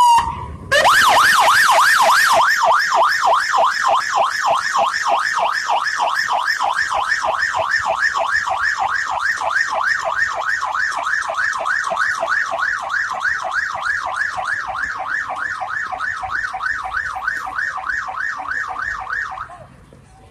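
Sheriff's pickup truck siren in fast yelp mode, sweeping rapidly and regularly up and down, growing slowly fainter as the truck moves off, then cutting off about a second before the end.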